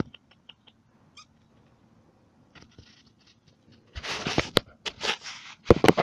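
Yard-dog puppies hissing and snarling at close range. It is quiet with a few small clicks at first, then loud rough bursts start about four seconds in and are loudest near the end.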